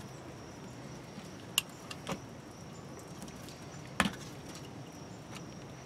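A few sharp clicks and knocks as an RV city water inlet fitting and a screwdriver are handled against the camper's side wall, the loudest about four seconds in, over low steady background noise.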